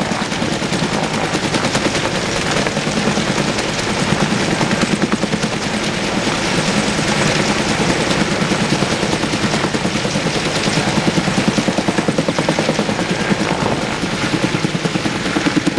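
Helicopter with a two-blade main rotor hovering close overhead, the rotor blades beating in a loud, rapid, steady chop over the engine's running noise, while it lifts a power-line pole slung beneath it.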